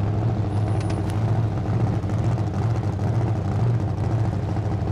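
Four-wheel-drive van's engine running steadily at low revs as the van creeps forward and rolls a front wheel onto a plastic case, a steady low hum.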